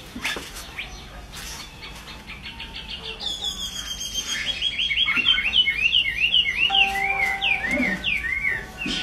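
Chinese hwamei (họa mi) singing. Scattered short notes at first; about three seconds in, a fast run of notes that turns into loud, repeated arching whistles, about three a second.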